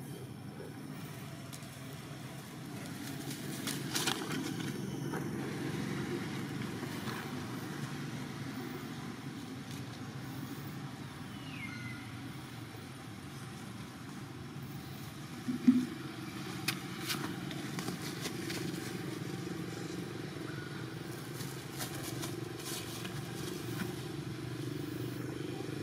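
Steady low outdoor rumble, with a few faint clicks and one short, loud knock about sixteen seconds in.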